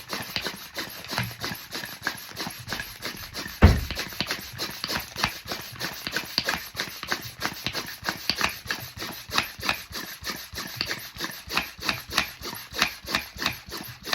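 A small air pump working on the valve of a vacuum compression bag of clothes. It runs in quick, even strokes, about four a second, drawing the air out so that the bag shrinks. There is one heavy thump a few seconds in.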